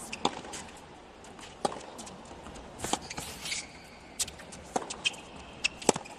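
Tennis rally on a hard court: sharp pops of racket strokes and ball bounces, roughly one a second, over a hushed stadium crowd.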